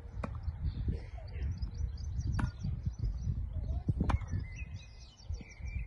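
Tennis rally: three sharp racket-on-ball strikes roughly two seconds apart. Birds chirp in the background over a low rumble.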